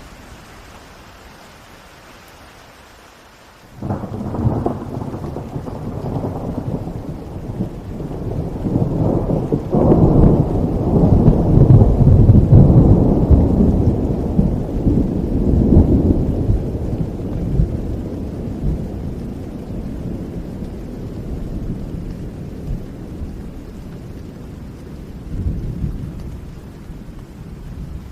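Steady rain, then about four seconds in a sudden clap of thunder that rolls on as a long low rumble, loudest around the middle and slowly dying away, with one more swell near the end.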